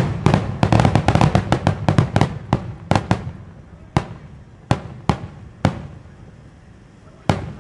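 Rapid-fire barrage of large No. 7 (about 21 cm) aerial firework shells bursting. A dense run of bangs lasts about three seconds, then thins to single bangs a second or so apart, with one last bang near the end.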